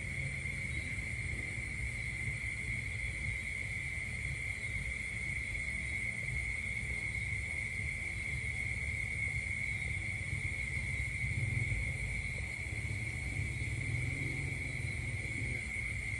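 Steady, unbroken high-pitched insect trill, cricket-like, holding one pitch throughout, over a low rumble.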